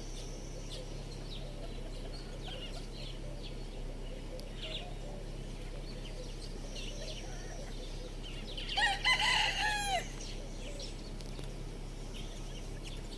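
A rooster crows once, about a second long, its pitch falling at the end. Scattered short, high bird chirps sound throughout over a steady low hum.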